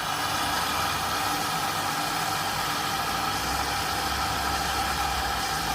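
Arçelik 8 kg washing machine in service test mode, with the inlet valve for the first detergent-drawer compartment open and mains water running steadily into the drawer. The sound is an even, unchanging rush.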